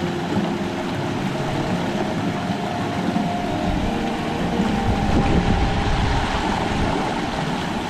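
A small mountain stream rushing steadily over a rock step in a short cascade, with some wind buffeting on the microphone, strongest from about five to seven seconds in.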